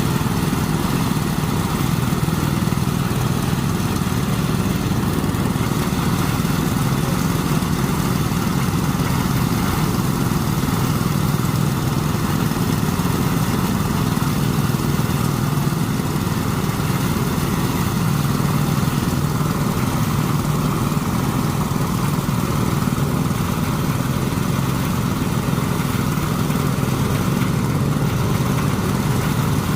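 Small engine running steadily at constant speed, with no revving up or down.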